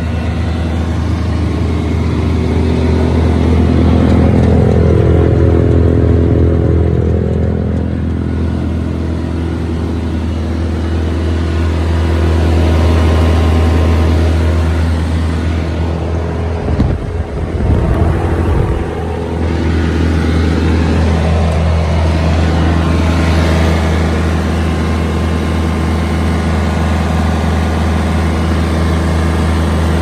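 A towable wood chipper's diesel engine running at a steady speed. A little past halfway, a couple of seconds of low buffeting on the microphone break in over the engine.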